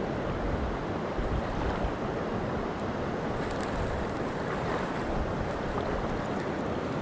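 River water rushing steadily over a rocky riffle, with wind gusting on the microphone.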